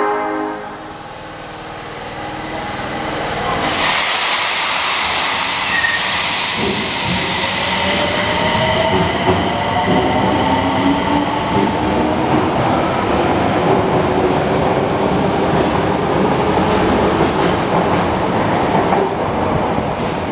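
Osaka Metro 30000 series subway train pulling out of the station and accelerating away. A rush of noise about four seconds in, then the rising whine of its traction motors and inverters as it gathers speed, over the rumble and clatter of the wheels as the cars pass.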